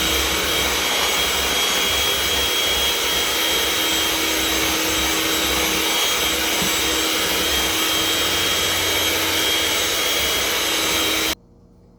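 Electric mixer running steadily at speed with a constant whine, beating eggs into creamed butter and sugar in a mixing bowl. It is switched off abruptly about eleven seconds in.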